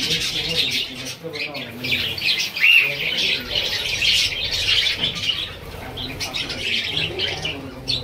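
A flock of budgerigars chattering: a dense, unbroken stream of chirps and warbles.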